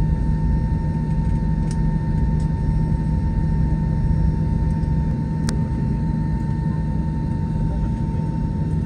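Cabin noise inside an Airbus A320-214 taxiing after landing: a steady low drone from the idling CFM56 engines with a thin steady whine over it. A few faint clicks can be heard, the clearest about five and a half seconds in.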